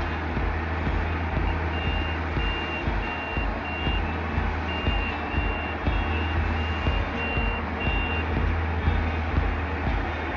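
Iseki HC80 crawler combine harvester's diesel engine running steadily under load as the machine works through deep mud, with a low pulsing drone. A high electronic warning beep repeats about twice a second from about two seconds in until near the end, with a short break in the middle.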